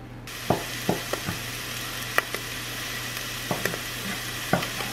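Ground beef sizzling in sesame oil in an Instant Pot's stainless steel inner pot on the sauté setting. The steady sizzle begins suddenly about a third of a second in, with a handful of light knocks and taps as the beef is stirred.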